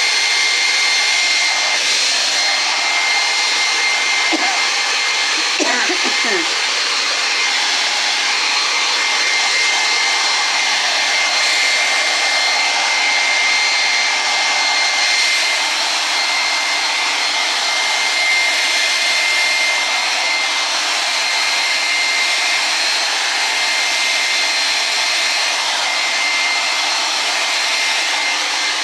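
Handheld hair dryer running steadily: a loud, even rush of air with a constant high motor whine.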